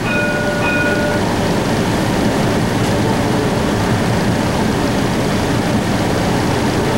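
Streetcar running along its line, heard from inside the car: a steady rumble from wheels on rail and running gear. A short electronic chime of a few steady tones sounds at the start.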